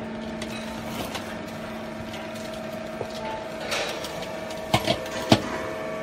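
Small vertical hydraulic baler running with a steady hum, with three sharp knocks close together near the end.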